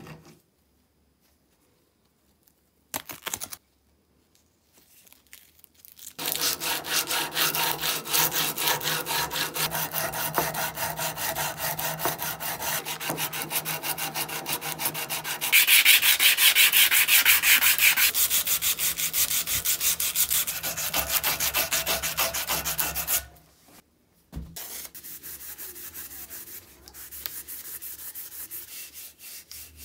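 Abrasive sandpaper strip drawn rapidly back and forth across the steel shaft of a Hazet wrench, shoeshine-style, in quick even strokes that start about six seconds in and grow louder for a few seconds in the middle. After a short pause, a Scotch-Brite pad rubs the wrench more quietly.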